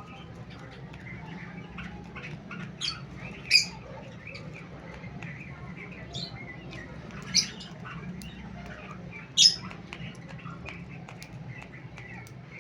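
Cockatiels giving about five short, shrill calls, two of them much louder, over a steady low hum and faint scattered ticking.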